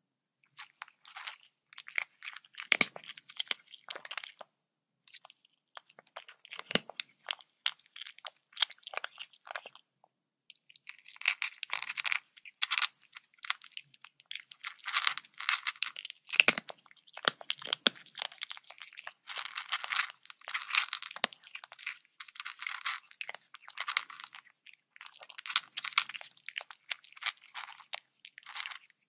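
Young leopard chewing raw meat: wet crunching bites in irregular bursts, with a couple of short pauses.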